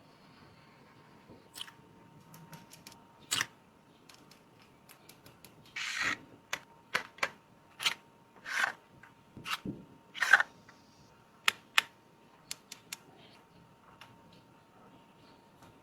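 Makeup packaging and containers being handled: irregular clicks, taps and short rustling scrapes, densest in the middle and thinning out near the end.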